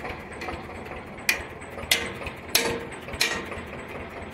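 Hammer blows on steel during the boom pin fitting of a Cat 424B backhoe loader: four sharp metallic strikes about two-thirds of a second apart, each with a brief ring.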